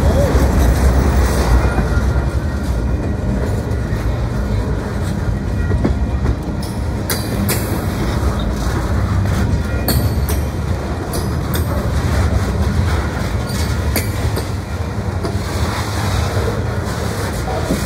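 Freight train boxcars rolling past: a steady low rumble of steel wheels on rail, with a run of sharp wheel clacks from about seven seconds in.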